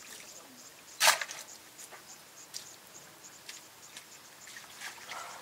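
African elephant digging at wet mud with its trunk: a short loud smack about a second in, then scattered light crackles and ticks of mud and grass.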